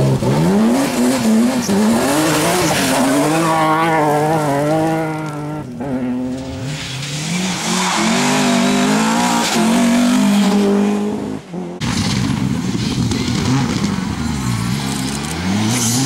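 Three rally cars at speed, one after another: a BMW 3 Series E36 on gravel, its engine revving up and falling back through the gears; after an abrupt cut about six seconds in, an Opel Kadett C rally car revving hard; then, from about twelve seconds in, a Škoda Fabia R5 on gravel, its engine pitch dropping and climbing again near the end.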